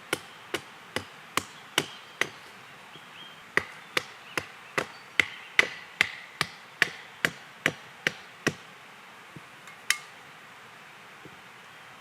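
Axe chopping a wild cherry billet on a stump to rough out a spoon blank: steady sharp blows about two and a half a second, a brief pause about two seconds in, then another run of blows that stops near the end, with one last single blow.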